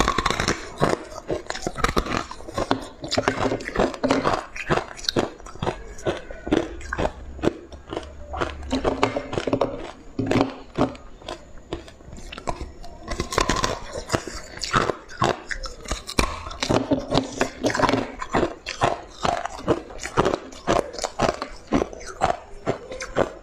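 Hard ice being bitten and chewed: many sharp crunches and cracks in quick succession, with wet chewing between them.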